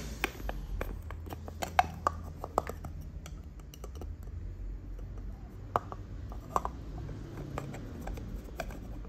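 Scattered light clicks, taps and clinks of small hard objects being handled, over a low background hum.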